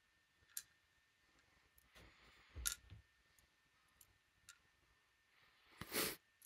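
Faint, sparse clicks and taps of small metal lock parts being handled as a brass ASSA Guideline pin-tumbler cylinder is taken apart, with a louder scrape of about half a second near the end.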